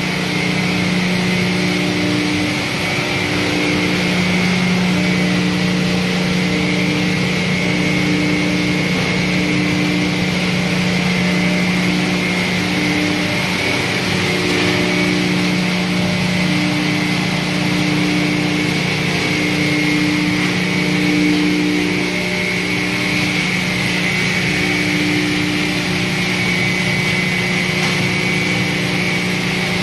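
Dual-shaft hammer mill running continuously: a steady loud machine drone with a low hum, a mid tone that swells and fades about once a second, and a high whine over a noisy rush.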